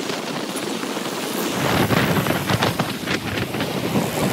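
Wind buffeting the microphone while riding along a busy street in traffic, over the running noise of the vehicle and passing traffic. The buffeting grows heavier about a second and a half in.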